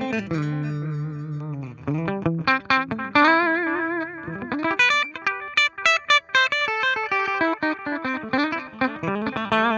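Clean electric guitar played through a Donner Alpha Force pedal's delay into a Fender Twin Reverb amp: a held chord in the first couple of seconds, then picked single-note lines, with a light delay repeating the notes a little in the background.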